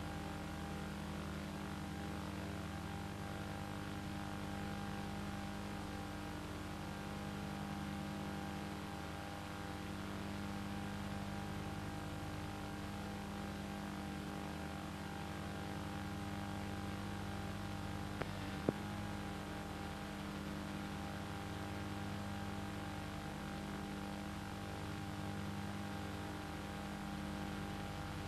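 Steady mechanical or electrical hum made of several fixed tones over a faint hiss, unchanging throughout, with two short clicks about eighteen seconds in.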